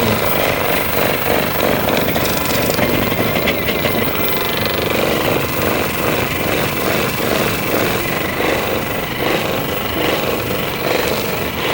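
Percussion massage gun running steadily, its head pulsing rapidly against the body.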